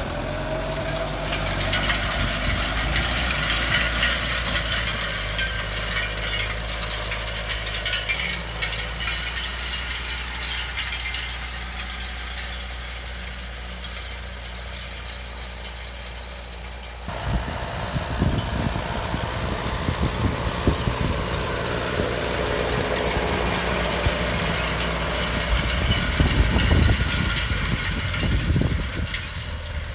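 John Deere 6330 tractor's diesel engine running steadily under load as it pulls an Akpil field cultivator, with the rattle and scrape of the spring tines and rollers working through stony soil. About halfway through the sound changes abruptly and becomes louder and more uneven.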